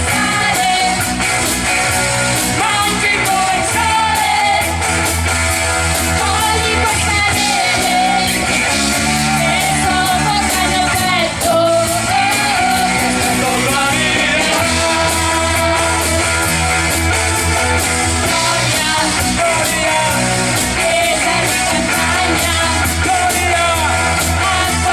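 A man singing a rock song over a backing of guitar and bass.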